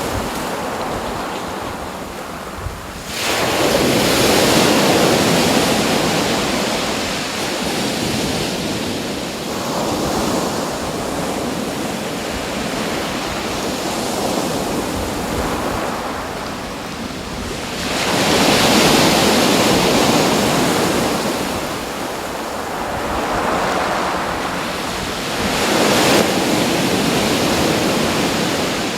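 Ocean surf: waves washing in as swelling surges of noise every several seconds, the strongest about three seconds in, near eighteen seconds and near twenty-six seconds, each easing off again, with some wind noise on the microphone.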